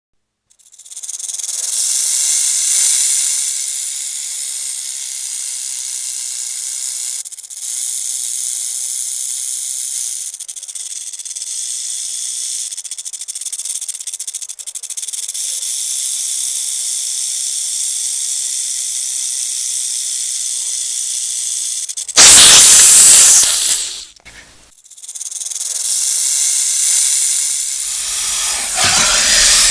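Rattlesnake rattling: a steady high buzz, broken after about twenty seconds by a short, much louder burst, then the rattle starts again and grows toward the end.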